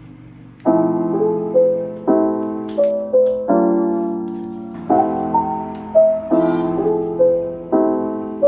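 Background music: a soft piano piece playing slow chords, each struck and left to fade, with a short melody on top.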